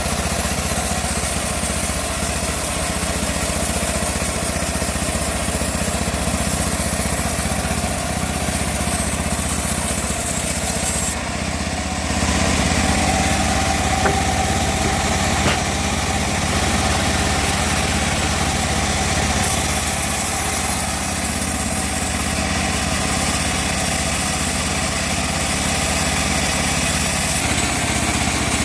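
Homemade bandsaw mill running steadily as it saws a teak log, an engine-like drone with a hiss of cutting on top. It dips briefly about eleven seconds in, then runs a little louder.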